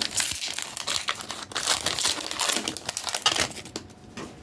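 Foil Pokémon booster pack wrapper crinkling and tearing as it is ripped open and handled, a dense run of rapid crackles that eases off near the end.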